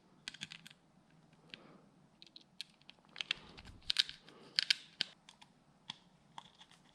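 Small screwdriver driving the housing screws back into a Wahl detailer trimmer: a run of light, irregular clicks and ticks as the bit turns and slips in the screw heads.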